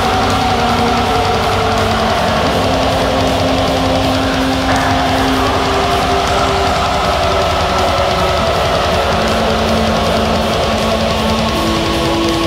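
Black metal recording: dense distorted electric guitars holding long notes that change pitch every few seconds, over fast, steady drumming.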